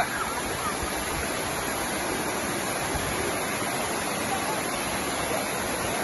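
Waterfall pouring over rock ledges into a shallow pool: a steady rush of water.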